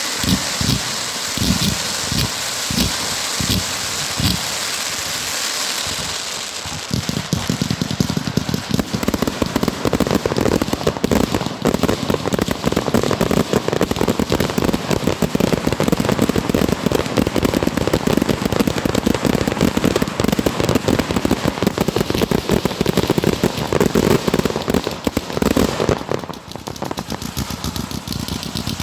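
Aerial fireworks display: separate low booms for the first few seconds, then from about seven seconds in a dense, continuous crackle of rapid pops, which dips briefly near the end.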